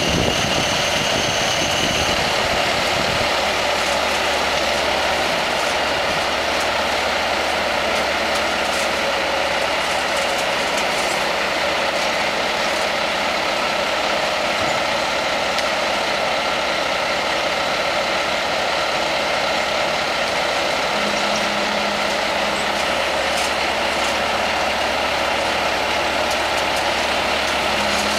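Bobcat S300 skid-steer loader's diesel engine running steadily as the machine drives up aluminium loading ramps onto a truck bed and back. It is a continuous engine drone with a steady high whine over it.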